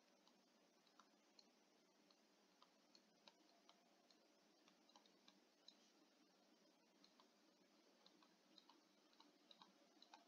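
Near silence with faint, irregular light ticks: a pen stylus tapping and sliding on a tablet surface while handwriting.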